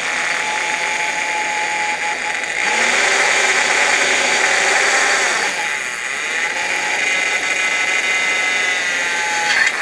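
Corded electric drill running under load as its bit bores through the plate on an outboard motor's lower unit. Its pitch shifts a few times as the trigger speed changes, and there is a short click near the end.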